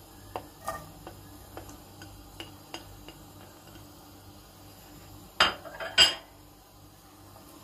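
Diced onion pushed off a ceramic plate into a frying pan with a silicone spatula: a series of light scrapes and taps, then two sharp clinks of crockery a little after five seconds and again at six.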